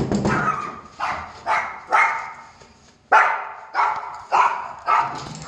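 A dog barking repeatedly in short, sharp barks, about one every half second, with a brief pause near the middle.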